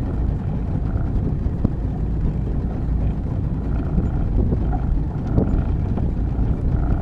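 Motorboat under way, its engine running steadily, with wind buffeting the microphone.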